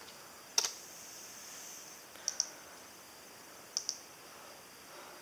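Separate presses on a computer keyboard: one sharp click about half a second in, then two pairs of lighter clicks, one around two seconds in and one near four seconds.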